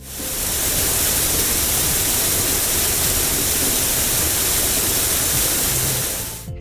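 Sound effect of a shower spray rinsing a car: a steady hiss of running water that fades in at the start and fades out near the end.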